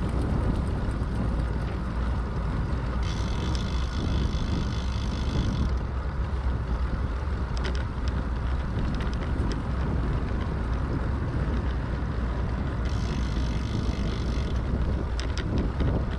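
Wind buffeting the microphone on a moving bicycle, a steady low rumble with a rushing hiss. Twice, about three seconds in and again about thirteen seconds in, a higher whirring hiss joins it for a couple of seconds.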